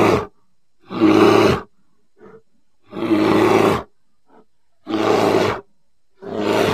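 Grizzly bear roaring: a series of short, loud roars about one every second or so, with two faint short calls between them.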